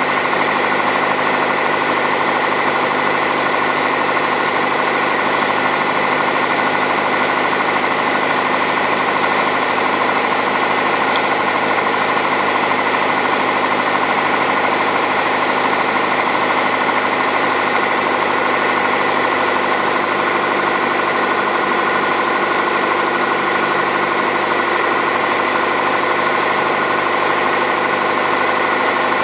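Single-engine piston airplane's engine and propeller heard from inside the cockpit, a loud steady drone that holds the same pitch throughout.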